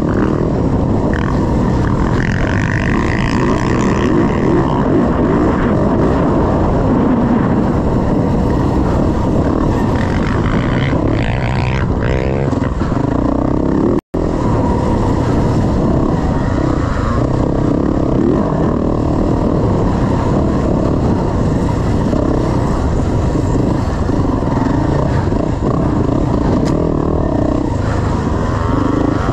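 Yamaha dirt bike engine running hard on a trail ride, pitch rising and falling with the throttle, with the rough rumble of the bike over dirt. The sound cuts out for an instant about halfway through.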